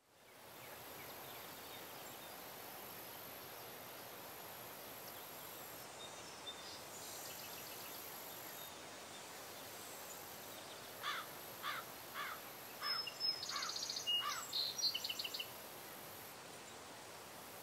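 Open-air ambience: a steady faint hiss that fades in at the start, with a high hiss that comes and goes. About two-thirds of the way in, a bird calls about six times in quick falling notes, mixed with higher chirps.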